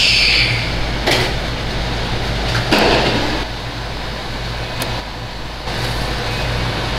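Round turbine-style dashboard air vent of a Mercedes-AMG GT63 swivelled by hand, giving a few short mechanical clicks and slides, likened to a lock in a high-security vault. A steady low hum runs underneath.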